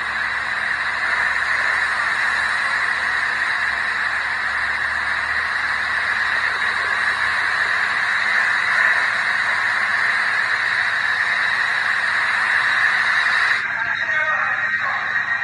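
Steady, loud rushing noise of floodwater, even and unbroken, with no distinct waves or voices. About 13 seconds in it cuts off abruptly, giving way to quieter room noise with faint voices.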